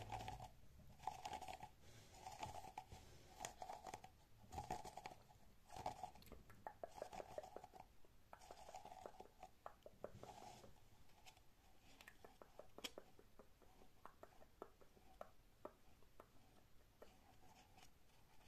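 Faint ASMR scratching and squeezing of a small crocheted cotton toy, with crunchy rubbing strokes about twice a second for the first ten seconds, then lighter scattered clicks and taps from the fingers.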